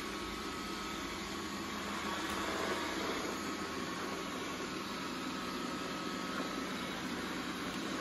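Roborock robot vacuum running as it drives across a hard floor: a steady whir from its suction fan and motors, getting a little louder about two seconds in.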